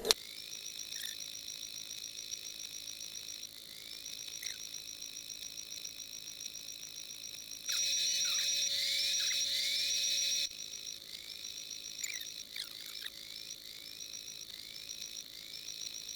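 Insects chirping steadily in the background. About eight seconds in, a louder steady whine with a fixed pitch starts abruptly and cuts off about three seconds later: an electric motor on the all-electric RC excavator running briefly.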